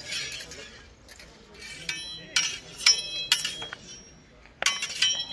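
Steel longswords clashing in sparring: a series of sharp blade-on-blade clanks, each ringing briefly, in a quick run about two to three and a half seconds in and another cluster near the end.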